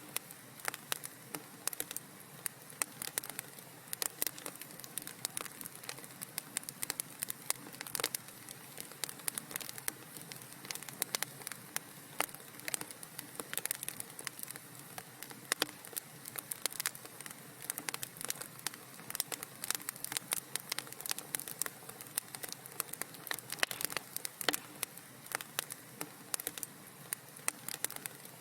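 Wood fire crackling, with many small irregular pops and snaps over a steady soft hiss.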